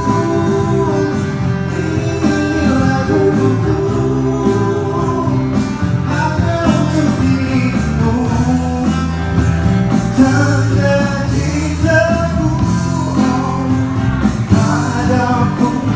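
Live band performance: a man singing into a microphone over strummed acoustic guitar, with percussion played on an electronic drum pad with sticks.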